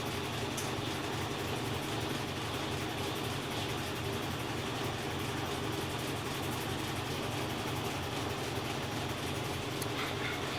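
GE Ecoperformance 15 kg top-load washing machine spinning at a steady speed, its motor humming evenly with a constant whir.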